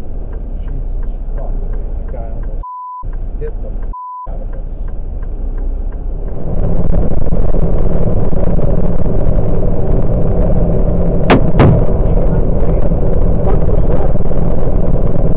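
Semi-truck cab noise picked up by a dashcam, cut twice by short high censor bleeps. About six seconds in it gives way to louder, steady road and engine noise of a truck cruising at highway speed, broken about eleven seconds in by two sharp bangs a fraction of a second apart: something thrown at or off the truck striking it.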